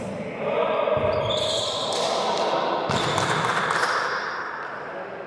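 A volleyball being hit and bouncing on a gym court, a few sharp strikes that echo in a large hall over continuous background noise.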